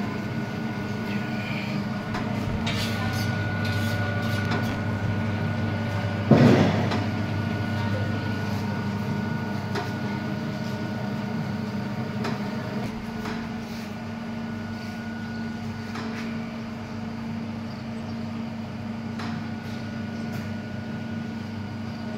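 Hydraulic oil press machine running with a steady motor-and-pump hum, with a sudden loud clunk about six seconds in.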